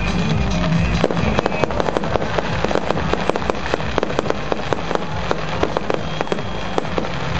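Fireworks going off in a rapid string of sharp pops and crackles, several a second, starting about a second in.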